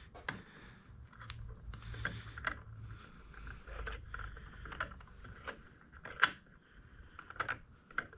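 Scattered light metallic clicks and clinks of hand tools and a crank puller being fitted onto the end of a moped engine's crankshaft.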